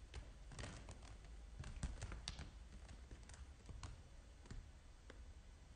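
Faint, scattered scratches and clicks of kittens' claws hooking into a quilted mattress cover as they climb and cling to it, thickest in the first few seconds.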